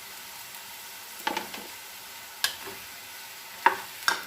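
Chopped tomatoes sizzling in a pan of hot tempering with a steady hiss. A stirring spoon knocks against the pan four times as they are fried.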